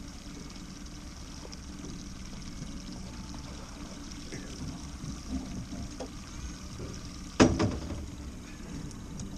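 Water splashing and trickling around a hooked trout being played at the boat's stern, over the steady low hum of the boat's motor. About seven and a half seconds in comes one sudden loud splash as the fish is brought to the landing net.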